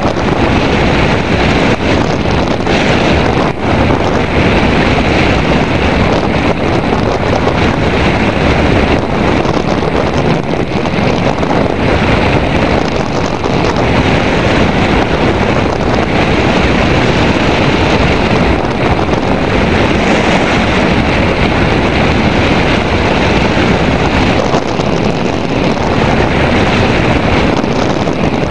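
Loud, steady rush of airflow buffeting a microphone mounted on a hang glider in flight, swelling and easing slightly.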